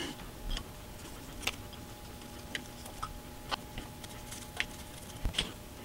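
A few faint, scattered light clicks and taps from small parts and a brush being handled on a cutting mat, over a faint steady hum.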